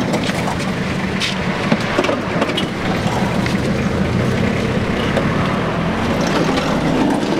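Minibus engine running with the body rattling, heard from inside the cabin: a steady low drone under a noisy din, with scattered clicks and knocks.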